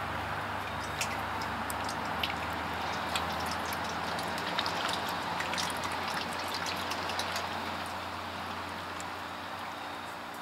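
Hydraulic fluid pouring from a plastic jug through a funnel into a log splitter's hydraulic tank: a steady trickling stream with scattered small clicks, easing off a little near the end.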